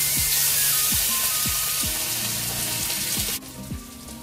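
Loud sizzling on the wood stove, a steady hiss that cuts off abruptly about three and a half seconds in, with background music playing.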